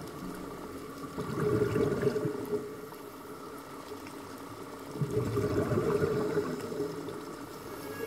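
Scuba diver's exhaled breath bubbling out of a regulator underwater, heard twice: a gurgling burst about a second in and another about five seconds in, each lasting over a second.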